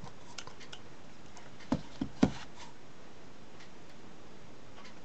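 Handling of a multimeter and its test probes on a workbench: a few light ticks, then three sharp knocks close together just under two seconds in, the last the loudest.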